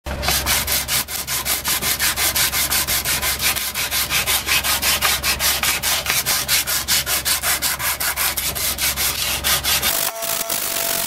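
A strip of sandpaper is worked rapidly back and forth around a wooden hammer handle, shoe-shine style, in an even scratchy rhythm of about five strokes a second. The strokes stop near the end.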